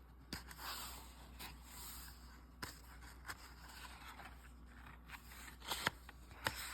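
Soft rustling and scraping of a picture book being handled, with a few sharp clicks or taps scattered through, the loudest near the end.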